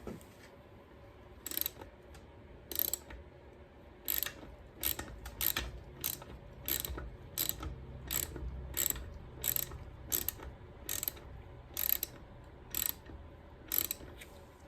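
Ratchet wrench clicking in a run of short strokes, a few scattered clicks at first, then about one and a half a second. It is turning a small bolt whose threads are stripped and that spins nearly free.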